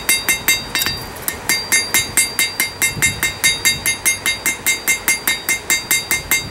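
Blacksmith's hand hammer striking hot steel on an anvil in a fast, even rhythm of about five blows a second, each blow with a bright ringing anvil tone, and a short pause about a second in. This is forge work drawing out a fin on the hot steel.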